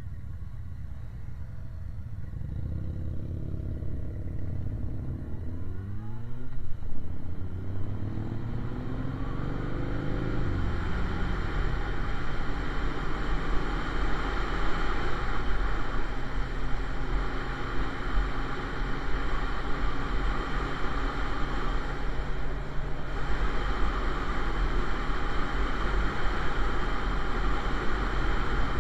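Motorcycle pulling away from a stop, its engine rising in pitch through two gear changes, then cruising at speed with steady wind and road noise on the microphone.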